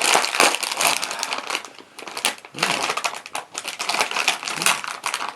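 Plastic potato chip bag crinkling and crackling as it is opened and handled, with a brief lull about two seconds in.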